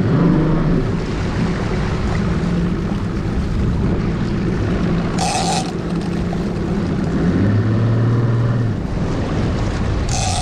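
Outboard motor running as the boat holds against a hooked fish, a steady low engine hum under wind and water noise, with a deeper tone for about a second past the halfway mark. Two short hissing bursts stand out, about five seconds apart.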